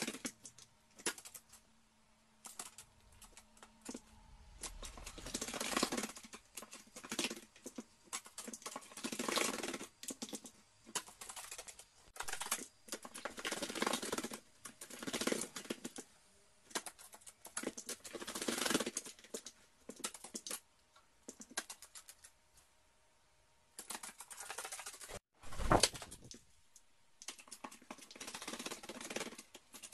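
Carrion crow bathing in a plastic basin of water, splashing with its wings and head in repeated short bouts, water pattering on the wooden floor. One louder knock near the end.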